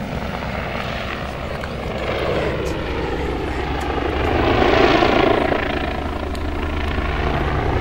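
Eurocopter BO-105 helicopter flying an aerobatic loop, its main rotor beating steadily over the engine noise. The sound swells to its loudest about five seconds in, then eases off.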